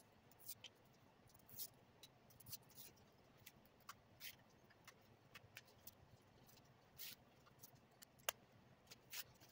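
Faint, irregular clicks and scratches of a hobby knife cutting and prying foam board parts free on a cutting mat, over a low hum.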